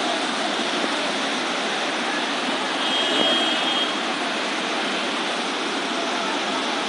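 Steady rushing of a fast, muddy flooded river, a loud even roar of water. A brief high tone sounds faintly over it about three seconds in.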